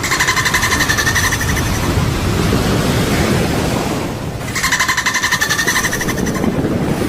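An animal's rapid, rattling trill-like call, given twice, each bout lasting about two seconds, over a steady low rumble.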